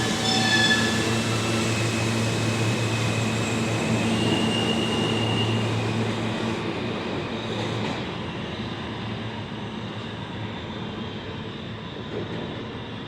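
New York City subway train running along the BMT Broadway Line at 28th Street station, with a steady low rumble and high-pitched whines in the first few seconds, fading away as the train moves off.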